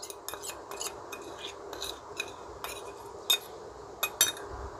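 A metal spoon clicking and clinking against a steel tiffin box: a run of light clicks, with sharper clinks a little over three seconds in and again around four seconds.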